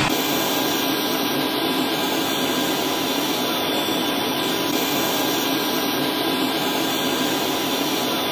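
Apache helicopter turbine engines running steadily on the ground: an even rushing hiss with a thin, steady high whine.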